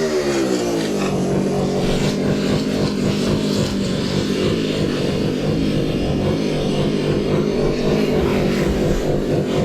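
Two-stroke chainsaw coming off the throttle: its engine speed falls and settles about a second in into a steady idle.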